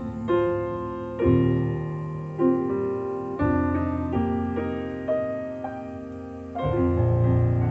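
A slow piano piece played back through a hi-fi system with Tannoy Gold 15-inch dual-concentric loudspeakers. Chords and bass notes are struck about once a second, and each one rings and fades away.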